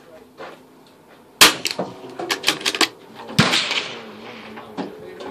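.22LR rifle gunshots at a range: a sharp crack about a second and a half in, and another just past three seconds with a short echo after it. Several fainter cracks and clicks come between them.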